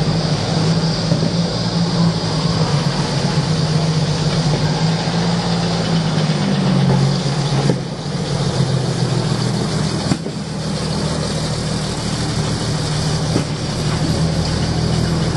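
Heavy truck engine running steadily with a deep, even hum, its pitch shifting slightly about halfway through.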